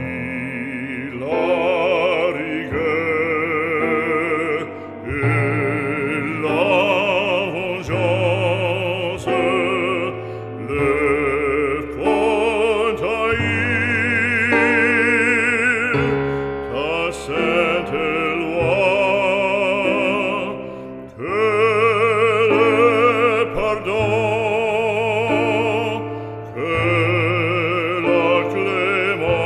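Background music: operatic singing, held notes with a strong vibrato, over long, steady low accompaniment notes.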